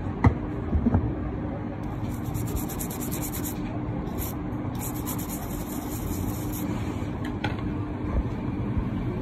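Stiff brush scrubbing the freshly desoldered charging-port pads of a phone circuit board, a fine rapid scratching in two spells, over a steady background hum and rumble. A couple of sharp knocks come at the start.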